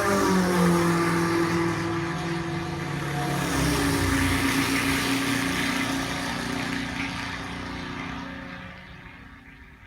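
Sports racing car engine passing at speed, its pitch falling, with a change of engine note about three and a half seconds in, then fading away as the car moves off.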